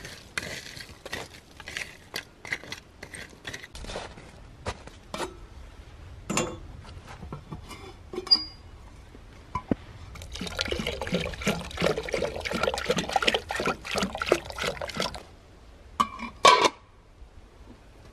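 A small shovel scraping and clinking through ash and charcoal, then about ten seconds in a five-second rattling rush of something being poured into a metal samovar. Two sharp metal clinks follow near the end.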